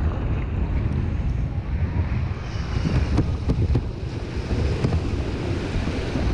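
Strong wind buffeting the microphone over rushing surf, with breaking waves and spray splashing against a Hobie Adventure Island sailing kayak's hull as it rides through whitewater. A few sharper splashes come around the middle.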